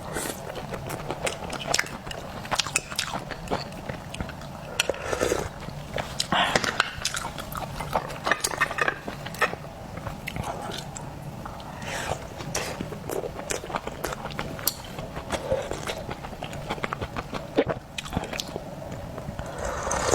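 Close-miked eating sounds of a person chewing seafood, with irregular wet smacks and sharp clicks, over a low steady hum.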